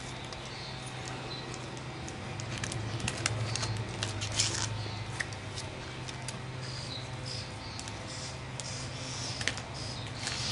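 A golden retriever puppy chewing a dry stick: scattered small crisp clicks and cracks, thickest a few seconds in, over a steady low hum.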